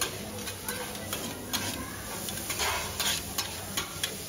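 Metal spatula clacking and scraping on a flat-top steel griddle as noodles are stir-fried, in irregular strokes over a steady sizzle.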